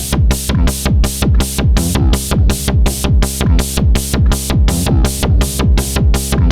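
Electronic drum loop: a synthesized bass drum beating about twice a second under hi-hats ticking about four times a second, over a sustained synth tone.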